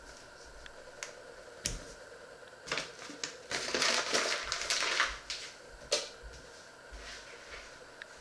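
Paper flour bag crinkling as it is handled, loudest for about a second and a half near the middle, with a few light knocks on the counter before and after.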